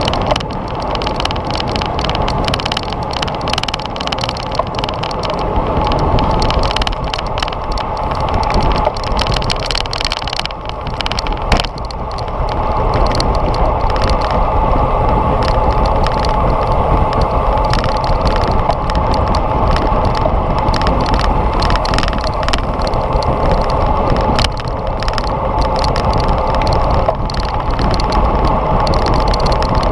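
Riding noise picked up by a bicycle-mounted GoPro at speed: steady wind rush and tyre-on-road noise with many small rattles and clicks throughout.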